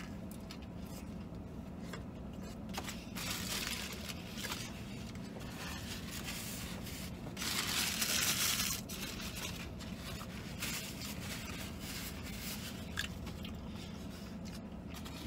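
Paper napkins and food wrapper rustling and crinkling in short stretches, loudest about halfway through as hands are wiped with napkins, over a steady low hum.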